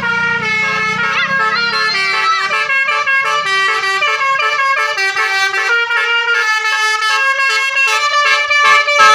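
A basuri musical vehicle horn playing a quick tune of short stepped notes, with a low engine rumble under it at first.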